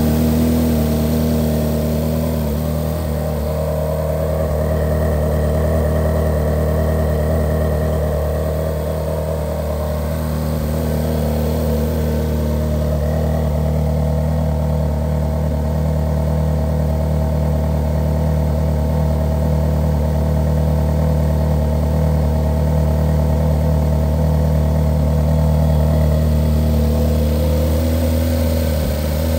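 The 2010 Ferrari 458's 4.5-litre V8 idling steadily after a cold start, the engine note holding even with no revving.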